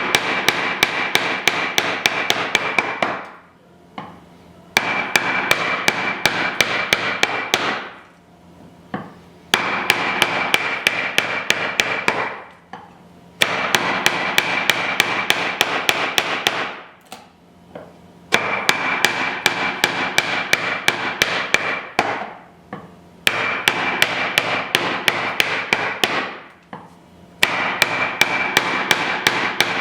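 A hammer rapidly tapping a woodworking chisel to chop out waste wood, about five sharp strikes a second with a ringing tone, in runs of about three seconds broken by short pauses.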